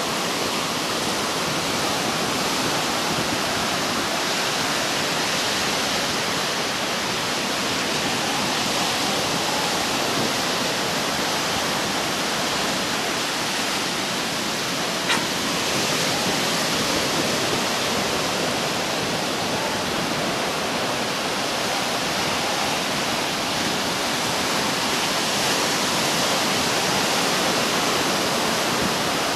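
Ocean surf breaking and washing up the beach, a steady rushing hiss, with one short click about halfway through.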